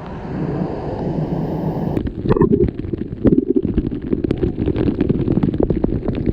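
Waterfall cascades rushing in a steady low-pitched noise. From about two seconds in, wind buffets the microphone in rapid crackling gusts over the water.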